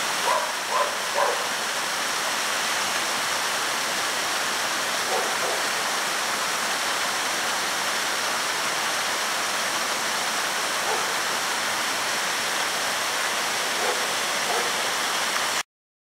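Steady rush of water gushing from outlet pipes and splashing down, with a dog barking briefly a few times, three times in the first second or so and a few times later. The sound cuts off suddenly near the end.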